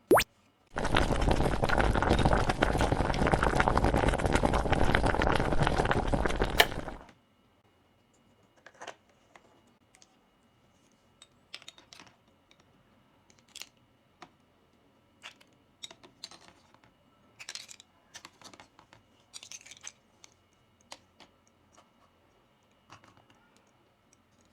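A dense crackling rustle that starts and stops abruptly and lasts about six seconds, then scattered light clicks and taps as small plastic toy-kitchen pieces are handled.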